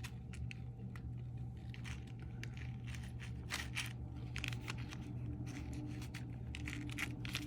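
Small jewelry bag crinkling and rustling in the hands as a necklace is worked into it, with irregular crackles and small clicks, over a steady low hum.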